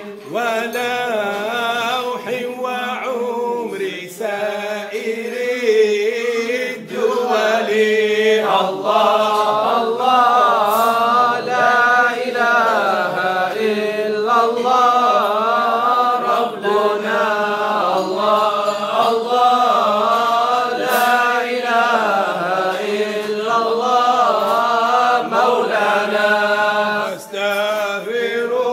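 Voices chanting mawlid verses together, a devotional recitation in praise of the Prophet, sung in a steady melodic line without pause.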